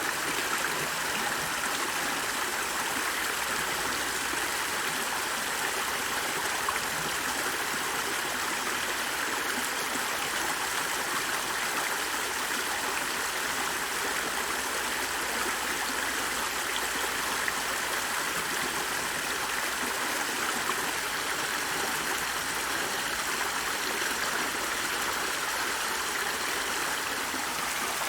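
Flowing water running steadily, like a stream, with an even rush that never breaks or changes.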